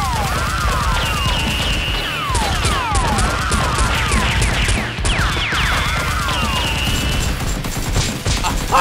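Edited-in gunfire sound effects for a toy-blaster shootout: rapid runs of shots mixed with many repeated falling-pitch zaps, over background music.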